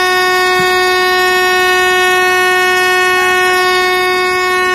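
Pickup truck horn held down in one long continuous blast at a single steady pitch.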